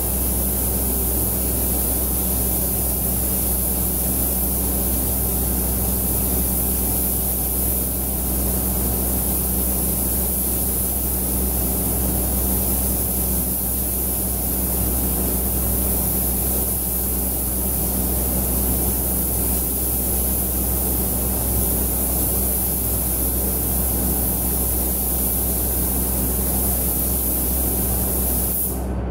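Steady hiss of a compressed-air paint spray gun spraying continuously, over the steady low drone of the spray booth's extraction fans.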